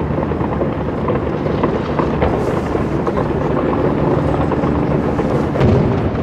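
Fireworks display going off: a dense, continuous crackling and rumble of many bursts, with a sharper bang about five and a half seconds in.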